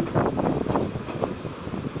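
New York City Subway A train running through the station, its wheels clattering and knocking irregularly over the rails with a steady rumble underneath.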